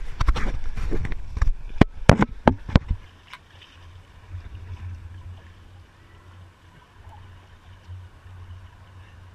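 Pool water splashing and slapping against a camera held at the water's surface by a swimmer, with many sharp, loud splashes at first. About three seconds in it settles to a much quieter, steady low rumble of water lapping.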